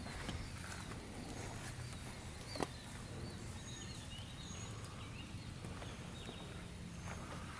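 Birds chirping with many short high calls over a low steady hum, and a single sharp click about two and a half seconds in.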